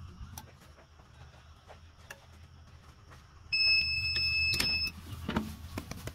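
DTF heat press timer sounding one steady high beep, about a second and a half long, marking the end of the press time. A few knocks and clunks follow as the press is opened.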